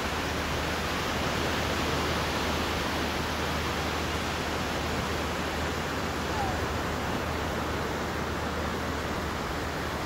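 Steady rushing noise of ocean surf, even and unbroken.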